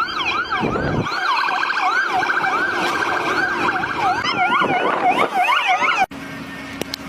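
Emergency vehicle sirens yelping, several overlapping with pitch sweeping rapidly up and down about two to three times a second. They cut off suddenly about six seconds in.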